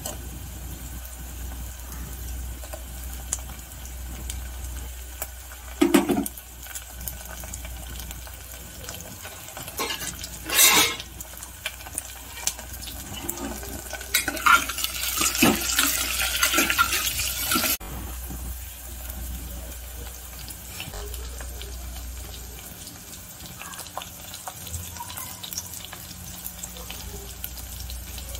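Chopped vegetables frying in oil in a pressure cooker and being stirred with a steel ladle: a few clinks of the ladle against the pot, then a louder few seconds of sizzling and scraping in the middle that stops abruptly, over a steady low hum.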